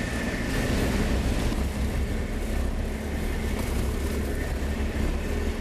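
Vehicle driving along a rough dirt road, heard from inside the cabin: a steady low rumble of engine and tyres with small knocks from the bumps.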